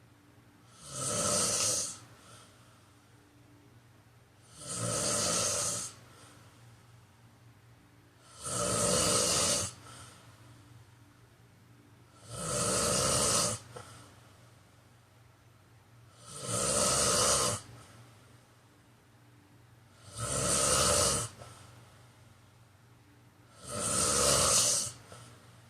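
A man snoring in a steady rhythm: seven snores, each about a second long, about one every four seconds.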